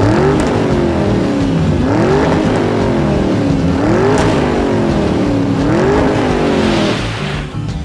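Race-car engine sound effect: several Formula cars revving past in turn, the pitch rising and falling about every two seconds.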